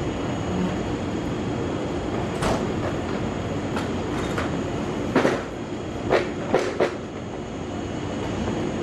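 Parked electric train idling at a platform, a former Nanao Line 413-series express: a steady hum and hiss from its roof air conditioners and onboard equipment. A few sharp clicks come through about halfway in.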